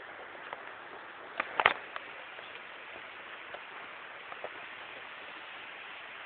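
Steady rain falling, with scattered drips and a few louder sharp knocks about a second and a half in.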